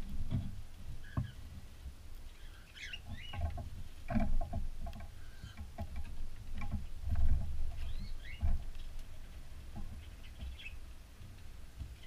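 A cockatiel shuffling and scratching in a bowl of litter right by the microphone, making irregular low knocks, rustles and clicks. A few short, faint bird chirps come in between.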